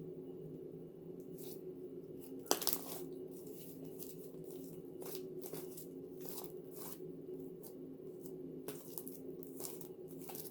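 Slime packed with fishbowl beads being kneaded and stretched by hand, crackling and crunching in short irregular bursts, with one sharper crack about two and a half seconds in, over a steady low hum.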